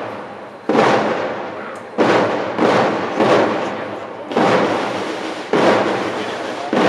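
A string of loud, sharp bangs, about one a second at uneven spacing, each echoing and dying away before the next.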